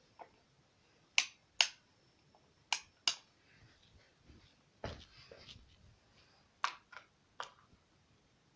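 A series of about eight sharp clicks, several in pairs a little under half a second apart, from the desk fan's switch buttons being pressed.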